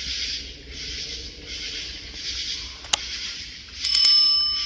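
A short bell-like ring near the end, over a high hiss that pulses about twice a second, with one sharp click about three seconds in.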